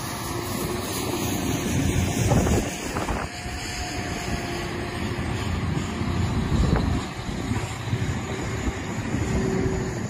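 A convoy of snowplow trucks and rotary snowblowers running, a steady low rumble with a faint engine drone, swelling a little about two and a half seconds in and again near seven seconds.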